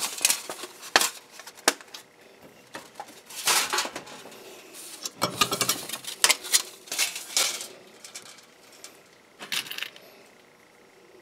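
Light metallic clinks and rattles of a thin titanium windscreen sheet and small snap parts being handled at a hand snap press, in scattered bursts that thin out near the end.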